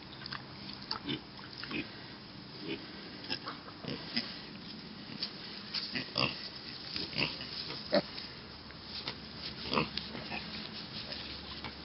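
Miniature pig making short grunts, scattered irregularly.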